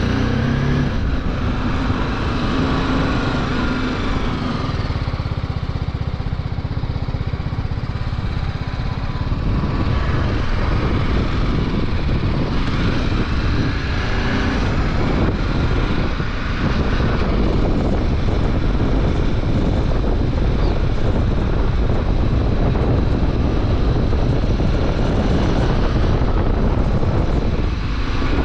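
Motorcycle under way on a road: the engine runs steadily, mixed with a constant rush of wind and road noise.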